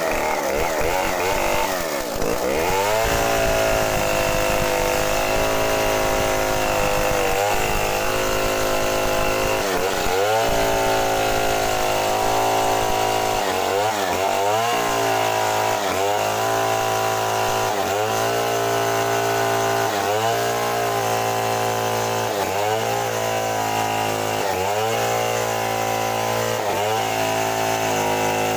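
Two-stroke gasoline chainsaw ripping lengthwise along a thick mahogany board under steady load. The engine speed sags and recovers about every two seconds as the chain bites into the cut.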